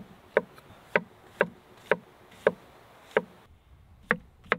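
A kitchen knife chopping through mushrooms onto a wooden cutting board: a steady run of sharp knocks, about two a second.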